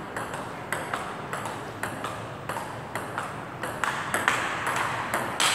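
Table tennis rally: the ball clicks alternately off the table and the paddles, about two to three hits a second, with a louder, sharper hit near the end.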